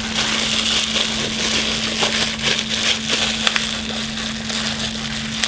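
Plastic packaging crinkling and crackling continuously as it is handled and pulled open, over a steady low hum.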